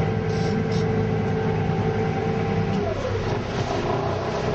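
Boat engine running steadily; about three seconds in its note drops, as when the throttle is eased back.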